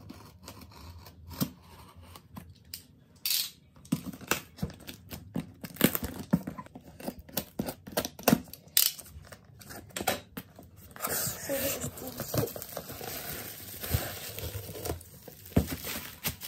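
Box cutter scoring and slicing the tape on a cardboard shipping box, with many sharp scrapes and taps on the cardboard. About eleven seconds in it gives way to several seconds of continuous tearing and crinkling as the box is torn open and its bubble-wrapped contents handled.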